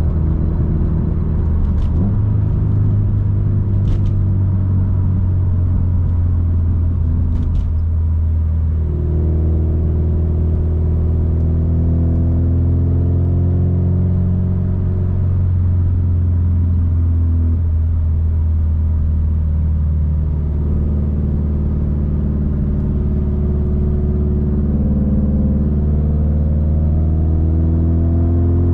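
Subaru STI turbocharged flat-four engine and exhaust running under way: a steady low drone that climbs in pitch as the car accelerates, eases off, and climbs again. A few short clicks come in the first several seconds.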